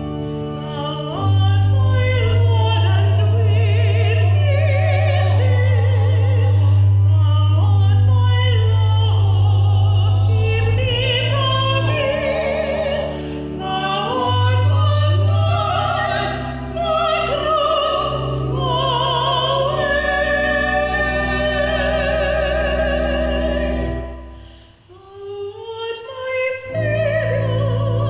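A church anthem sung by a voice with strong vibrato over instrumental accompaniment with long held bass notes. The music drops away briefly near the end, a pause between phrases, then the singing and accompaniment start again.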